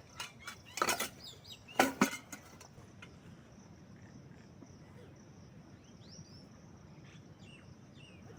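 A few sharp knocks and clatters in the first couple of seconds, then insects trilling steadily with a few short bird chirps.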